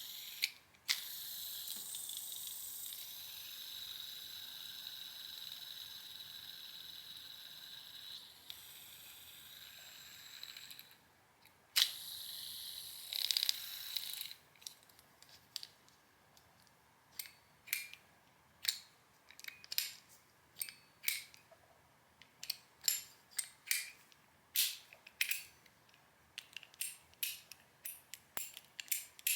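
Metal fidget spinner whirring on its ball bearing with a steady high ringing for about ten seconds, then spun again briefly. From about halfway on, a run of sharp metallic clicks, a few a second, as a metal fidget toy is worked by hand.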